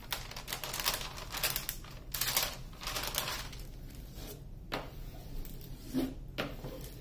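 The thick plastic cover of a diamond painting canvas crinkling and swishing under a smoothing tool, in a series of strokes, as the canvas is pressed flat.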